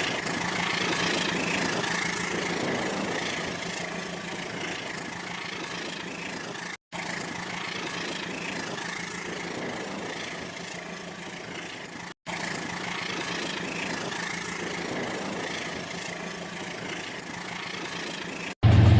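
Battery-powered toy train running on its track: the steady whir of its small motor and rattle of its wheels, dropping out briefly twice.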